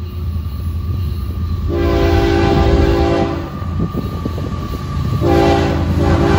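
Approaching Florida East Coast Railway freight train's lead diesel locomotive sounding its air horn in two long chord blasts, the first about a second and a half, the second starting about five seconds in. Under the horn, the low rumble of the diesel locomotives grows louder as the train nears.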